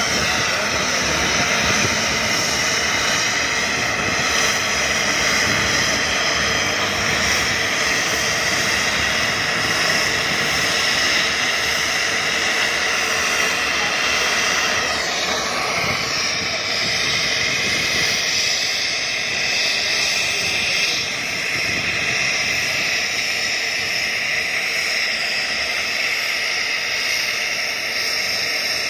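Helicopter turbine engines and rotor running steadily on the ground, a continuous whine over a broad rushing noise, with a brief dip in pitch about halfway through.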